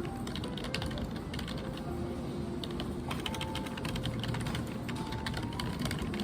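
Typing on a keyboard: runs of quick key clicks, in a burst near the start and another about halfway through.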